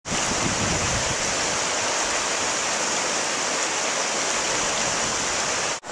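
Rushing mountain river: white water pouring over and between boulders in a steady hiss. Near the end it cuts out for an instant and comes back a little quieter.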